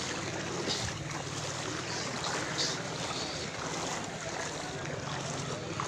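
Floodwater sloshing and rushing steadily, with a few small splashes, as someone wades through it knee-deep.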